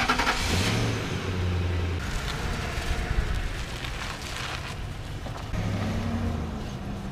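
Pickup truck engine running as the truck pulls away and drives off, the engine note climbing about half a second in and again near the end as it accelerates.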